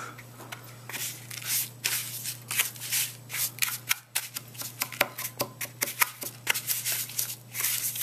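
Metal spoon stirring and scraping a mix of granulated white and brown sugar in a paper bowl, in quick irregular strokes, over a steady low hum.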